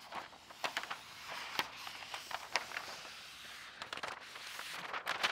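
Paint protection film having its backing liner peeled off and handled: faint crinkling and crackling of thin plastic film, with scattered sharp clicks.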